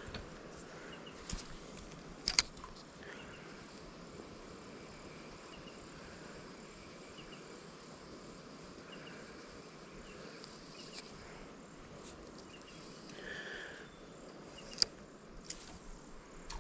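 Steady outdoor background of insects, with faint chirps, broken by a few sharp clicks, the loudest about two seconds in.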